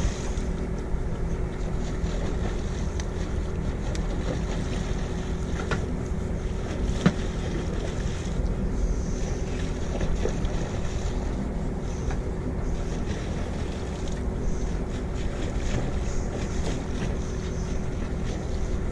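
Steady low rumble and hum aboard a small boat, with wind on the microphone and one sharp knock about seven seconds in.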